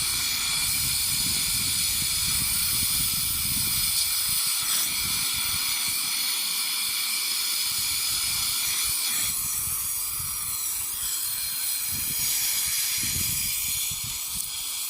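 Machine tool boring a large hole in a steel plate at about 100 rpm with a 3 mm depth of cut: a steady cutting hiss with several faint high whines and an uneven low rumble underneath.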